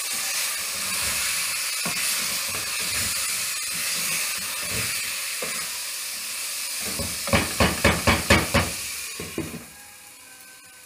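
Chicken mince frying in a pot with onion and ginger-garlic paste, a steady sizzle and hiss as a wooden spoon stirs and scrapes it. Near the end comes a quick run of about six knocks, the wooden spoon against the pot. The sizzle then drops to a faint hiss once the glass lid is on.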